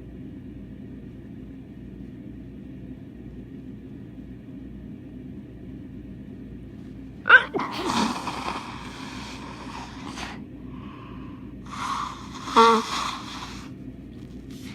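A person with a bad cold sneezing: a sharp, loud sneeze about halfway through, trailing into a couple of seconds of breathy noise, then another loud burst a few seconds later.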